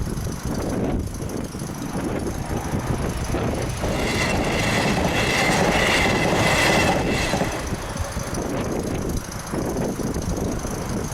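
Electric passenger train passing over a level crossing, louder for about three seconds in the middle with a high-pitched tone over the rumble.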